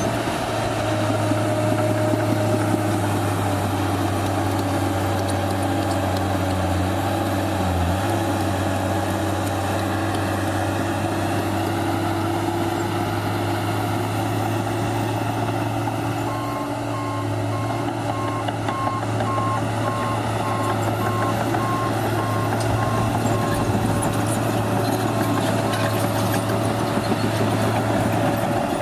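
Diesel engine of a New Holland D180C crawler dozer running steadily under work, heard from inside the cab. About halfway through a reversing alarm starts beeping, about two beeps a second, for several seconds as the dozer backs up.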